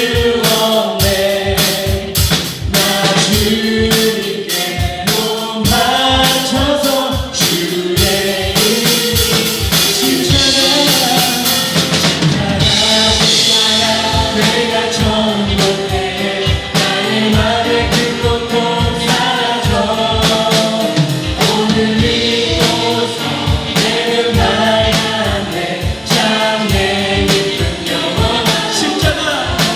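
Live contemporary worship band with singers performing a Korean praise song, voices carrying the melody over a drum kit keeping a steady beat.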